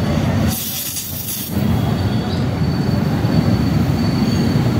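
Oxy-acetylene gas-welding torch burning with a steady roar while it welds shut a shock absorber body that has been cut open and refilled, to seal it against leaks. About half a second in there is a sharp hiss of gas lasting about a second.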